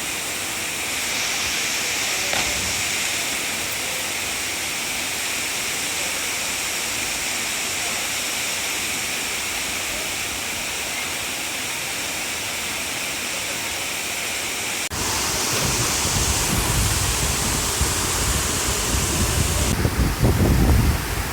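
Waterfall rushing steadily, an even hiss of falling water. About fifteen seconds in it changes abruptly to a louder, rumbling wash with uneven low buffeting.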